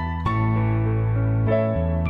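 Gentle instrumental background music of held chords, changing chord about a quarter of a second in and again near the end.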